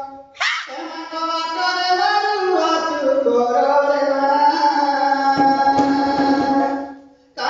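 A man singing a slow, drawn-out melody into a microphone, holding long notes that step and slide in pitch, with a quick upward sweep near the start. A few soft drum taps come in a little past five seconds, and the voice breaks off just before the end.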